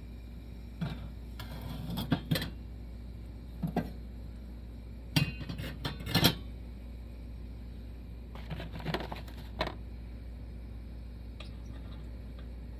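Short, scattered metallic clinks and rattles, in about six clusters, as the parts of a Coleman 220J gas lantern are handled, over a steady low hum.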